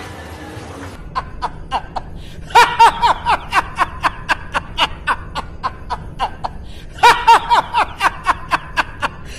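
A man laughing in long runs of quick, even "ha-ha" pulses. It starts about a second in and swells into two loudest bouts, near the third second and near the end.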